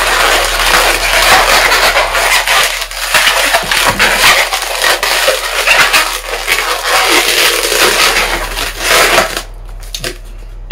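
Latex twisting balloons squeaking and rubbing against each other and the hands as they are twisted and locked together, a dense, continuous squeaky crackle that dies down about a second before the end.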